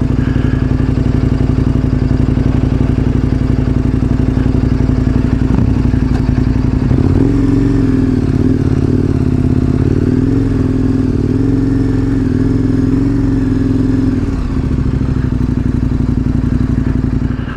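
Adventure motorcycle engine running while riding. The engine note rises about seven seconds in, wavers as the throttle changes, then falls back about three seconds before the end as the bike slows for a pull-off.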